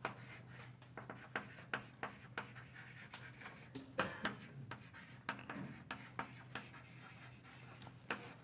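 Writing on a lecture board: an irregular string of short taps and scratching strokes.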